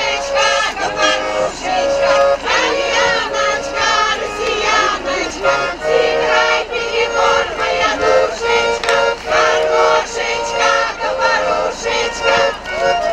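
A women's folk choir singing a Russian folk song in unison, accompanied by a hand accordion.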